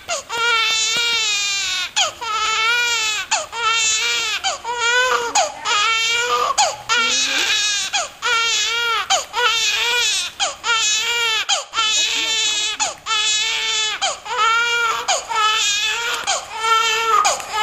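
Newborn baby crying: a steady run of short, high wails, roughly one a second.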